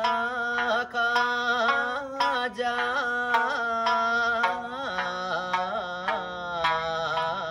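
A man singing an Okinawan folk song in long, wavering held notes, accompanied by a sanshin's plucked strings.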